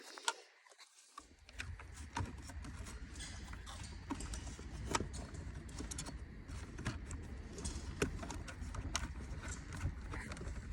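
Irregular light clicks and knocks of hands working plastic dashboard trim and wiring, over a steady low hum that starts about a second in.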